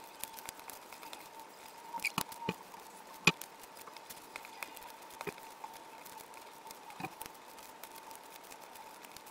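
Paper being folded and creased by hand on a wooden desk: scattered quick clicks, taps and rustles. The loudest is a sharp tap about three seconds in.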